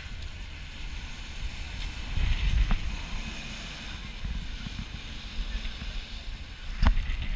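Wind buffeting the microphone with a gusty low rumble, over road traffic hissing past on a wet street; a sharp click near the end.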